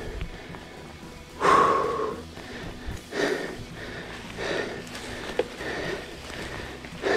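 A cyclist breathing hard on a steep uphill climb: loud, rhythmic exhales, about one every second and a half. The loudest, about a second and a half in, comes with a short voiced groan.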